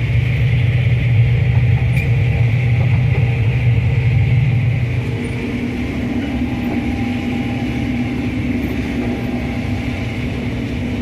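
Diesel farm machinery running steadily at working speed, a combine or grain-cart tractor, with a low drone and a higher mechanical hiss. About five seconds in, the deep hum fades and a higher-pitched hum takes over, as the machine's load or speed changes.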